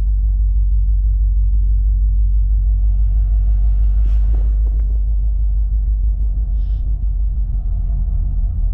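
Steady low rumble of BNSF diesel freight locomotives running past, with a few steady low engine tones in it.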